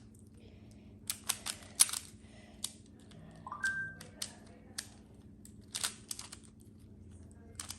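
Magnetic Pyraminx puzzle being turned quickly by hand during a speed-solve: irregular sharp plastic clicks, some in quick runs, as the magnets snap each turn into place.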